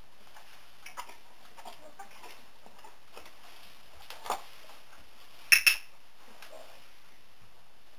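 A horse-training clicker clicked once, its press and release giving two sharp clicks close together about five and a half seconds in, marking the horse backing up correctly. Faint soft steps and rustles in the stable bedding come before it, with a short softer sound a little after four seconds.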